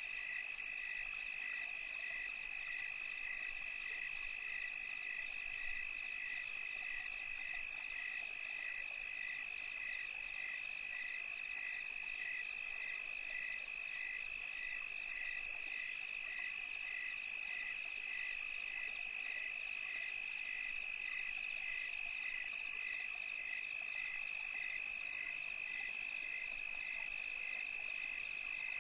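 Night chorus of calling insects: one steady high-pitched trill, with a second caller just below it pulsing about twice a second.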